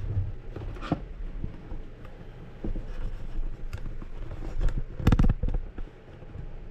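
Handling noise from hand tools being picked up and set down: scattered clicks and light knocks, with a louder clatter about five seconds in.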